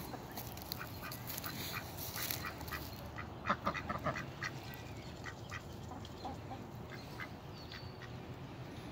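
Ducks quacking in a string of short calls, most frequent about three to four and a half seconds in.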